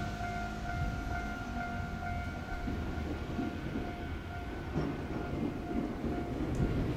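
Shizuoka Railway A3000-series two-car electric train pulling away and coming closer, its low running rumble from motors and wheels growing louder from about halfway through. A steady, level-crossing warning bell tone rings alongside and fades near the end.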